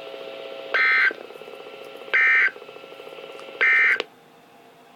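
Emergency Alert System end-of-message data bursts: three short, harsh digital squawks about 1.4 s apart, marking the end of the alert. A steady hum runs underneath and stops right after the third burst.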